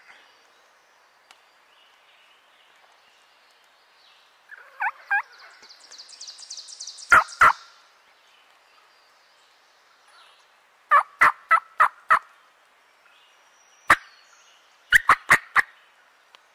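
Wild turkey gobbler gobbling loudly several times. Each gobble is a fast rattling run of notes, and the longest comes about eleven seconds in.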